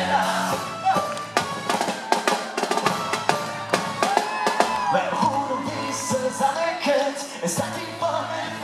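Live band music with a marching snare drum struck in a fast run of sharp strokes through the first half or so, over the band's bass and drums, with voices singing.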